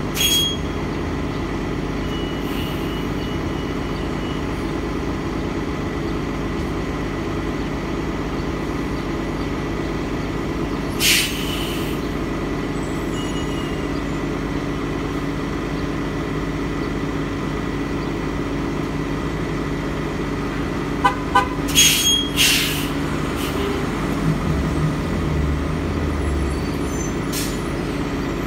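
Transit bus engine idling steadily at the bay. Sharp air hisses come once about a third of the way in and twice about two thirds in. Near the end the engine note deepens as the bus pulls forward.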